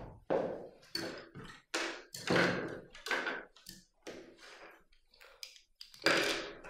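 Paint palettes and art supplies being picked up and set down on a wooden table: a string of irregular taps and clatters.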